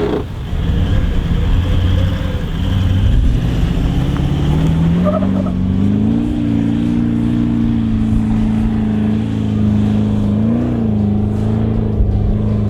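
Toyota LandCruiser 200 Series engine revving hard under load in soft sand. The revs climb sharply about four seconds in and are then held high, with a brief dip and rise about ten seconds in.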